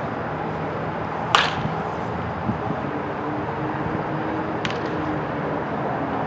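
A baseball bat strikes a pitched ball once, about a second in, with a single sharp crack. A much fainter click follows a few seconds later, over steady outdoor background noise.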